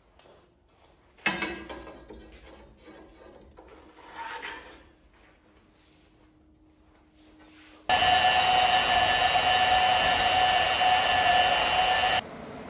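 Flat steel bar scraping and clanking in a vise as it is bent by hand into a ring, with one sharp clank about a second in that leaves a faint ringing tone. About eight seconds in, a DeWalt portable band saw starts cutting steel, a loud steady whine, and stops suddenly near the end.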